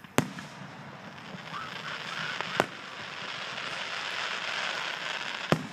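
Fireworks display: three sharp bangs of aerial shells bursting, about two and a half seconds apart, over a steady hiss that swells between the second and third bang.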